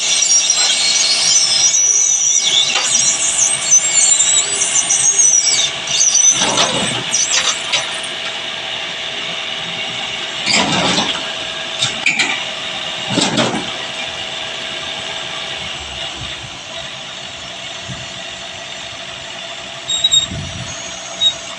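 Backhoe running while it is loaded, with shrill metallic squealing and scraping over a steady engine hum through the first half, and a few sharp clanks. It settles to quieter running near the end.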